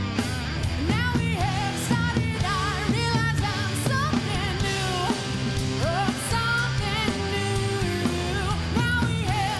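Background rock music with a singing voice over a steady bass line and drums.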